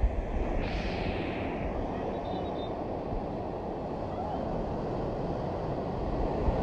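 Steady wash of surf breaking on a sandy beach, with wind rumbling on the microphone; a brighter hiss of foam washes in about a second in.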